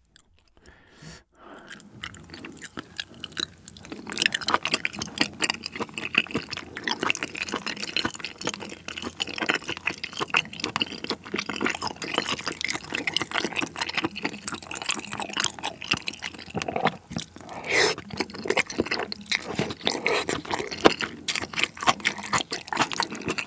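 Close-miked eating sounds: wet, sticky chewing of spicy braised monkfish stew (agujjim) with shrimp and bean sprouts, a dense run of irregular smacks and clicks that begins about two seconds in.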